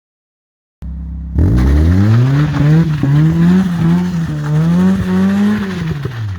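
Mazda MX-5's 1.6-litre four-cylinder engine, after a brief silence, revving up hard and held at high revs with the pitch wavering up and down, then dropping near the end, as the car is driven in skids on its welded differential.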